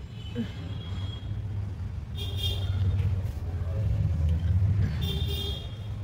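A motor vehicle's engine rumbling close by, swelling louder in the middle. Two short high tones sound about two and a half seconds apart over it.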